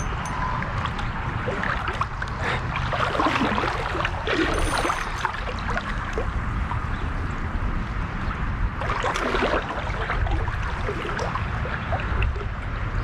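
Creek water running, with splashing from about two and a half to five seconds in and again around nine seconds in, as a hooked koi thrashes in the water during the fight.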